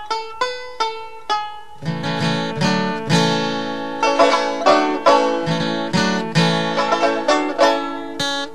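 Background music on plucked string instruments, a quick run of sharp, picked notes. A fuller, lower part joins about two seconds in.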